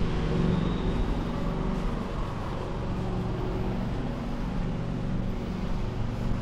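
A steady low mechanical hum with a faint, unchanging drone in it.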